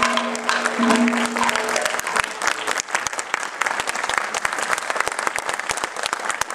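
A standing audience applauding, dense and even. During the first second or so the last of a held, horn-like tone from the stage fades out under the clapping.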